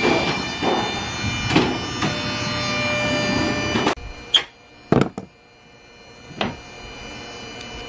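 Portable standing-seam roll former running: a steady mechanical drone of several tones with clicking and rattling as a 26-gauge Galvalume panel feeds out. It cuts off abruptly about four seconds in. A few sharp clinks and taps of the sheet-metal panel being handled on a wooden bench follow.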